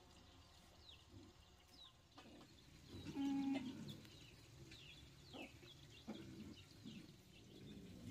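Chickens clucking, with one louder call about three seconds in, and a few faint, short, falling bird chirps.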